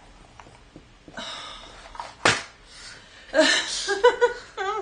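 Loose jigsaw pieces rustling and clattering in a cardboard box lid as it is moved, with one sharp knock a little over two seconds in. A short burst of voice or laughter follows near the end.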